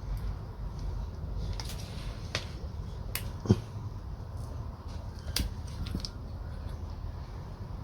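Sharp metallic clicks and taps as the metal parts of a homemade lathe dividing attachment are turned and its spring-loaded dog clutches are locked by hand; about six clicks, the loudest about three and a half seconds in, over a low steady hum.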